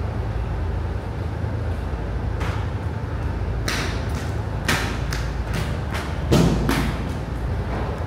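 Steady low rumble on a ferry's vehicle deck, with a quick run of about a dozen sharp knocks in the second half.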